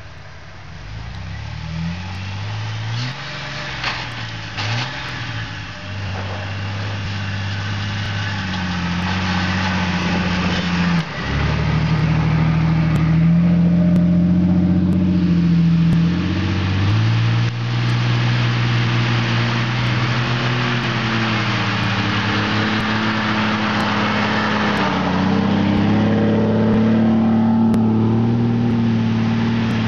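Off-road 4x4 engines, a Jeep Wrangler's and then a first-generation Ford Bronco's, pulling through deep snow. The engine note rises and falls with the throttle and grows louder over the first dozen seconds, then holds a steadier, stronger pitch through the second half.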